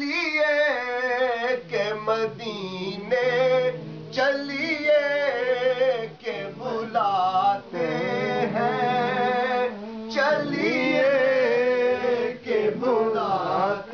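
A man's voice singing a naat, an Urdu devotional song, in long, ornamented held notes that waver and bend in pitch, with short breath breaks between phrases.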